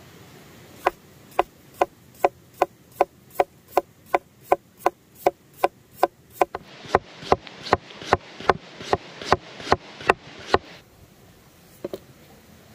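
Large knife slicing a raw potato into thin rounds on a wooden chopping board, each cut ending in a sharp knock of the blade on the board. About two dozen even strokes at about two and a half a second, stopping a little after ten seconds, then a quick double tap near the end.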